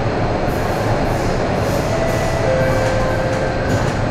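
Subway train running through a tunnel, heard from inside the car: a loud, steady rumble and rush of wheels on rails. Faint thin whines, typical of wheel squeal, rise over it around the middle.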